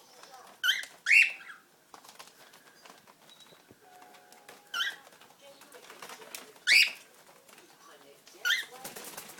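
Baby cockatiel giving short, sharp calls: five in all, two close together near the start, then one every two seconds or so.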